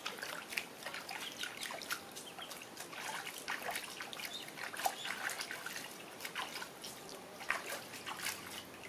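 Water splashing and dribbling in a plastic tub as a hand scoops water over a baby monkey being bathed, in irregular small splashes and drips.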